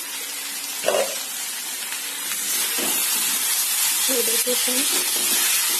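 Potato and soybean curry sizzling in a steel kadai while a spatula stirs and scrapes through it, the sizzle growing louder about halfway through. A short metallic clank about a second in and another near three seconds.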